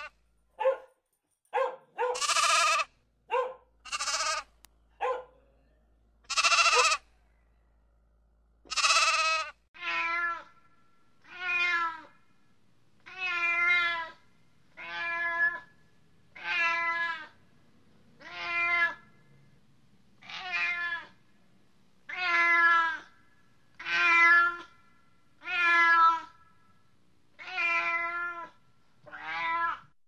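Several sheep bleats and shorter calls in the first nine seconds or so, then a domestic cat meowing over and over, about a dozen meows spaced a second and a half to two seconds apart.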